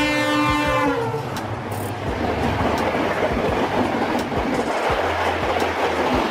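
Diesel locomotive's horn sounding in several tones, sliding slightly down in pitch and stopping about a second in. Then a passenger train rolls by with a dense rumbling rush and wheels clattering over the rail joints.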